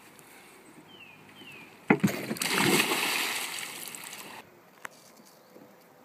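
A person jumping into a pond: a sharp smack on hitting the water about two seconds in, then a couple of seconds of splashing that cuts off abruptly.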